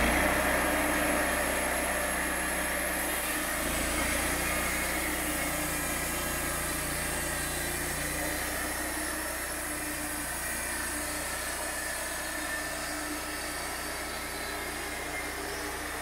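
Engine of a Wood-Mizer LT35HD sawmill running steadily as the saw head travels along the log without cutting, slowly fading as the head moves away.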